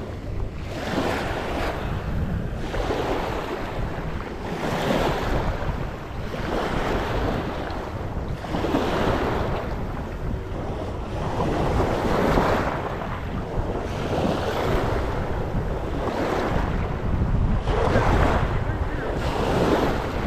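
Small waves washing in over a pebble shoreline, surging and falling back about every two seconds. Wind rumbles on the microphone underneath.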